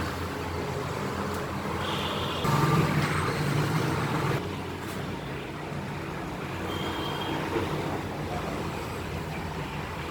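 Steady background noise with a low hum, louder for about two seconds a couple of seconds in.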